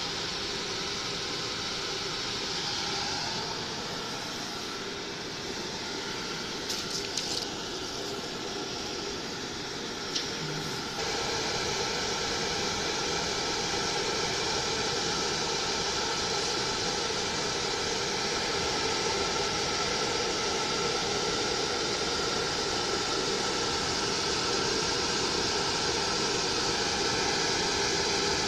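Galvo laser cutting machine running: a steady whirring hum with several steady tones. It gets louder about eleven seconds in, and a few faint clicks come shortly before that.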